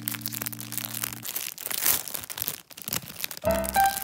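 Thin clear plastic packaging bag crinkling and rustling as it is handled around a phone case. A low held music tone stops about a second in, and background music notes come in loudly near the end.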